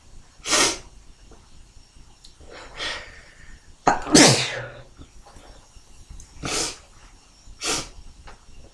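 Human sneezes, five in a row, one or two seconds apart. The one about four seconds in is the loudest, with a voiced cry that falls in pitch.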